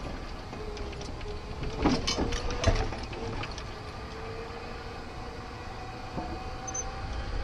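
Golf cart rolling slowly along a paved street: a steady low rumble with a faint whine that shifts in pitch, and a cluster of clicks and rattles about two seconds in.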